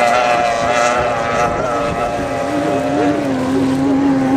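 Several racing outboard engines on tunnel powerboats running at steady revs, their pitches overlapping. About two and a half seconds in, one settles into a steady lower drone.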